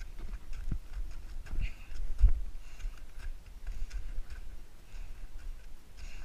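Low rumble of handling and wind on a helmet-mounted camera, with scattered small clicks and knocks as a climber handles ice axes and gear; the loudest is a thump about two seconds in.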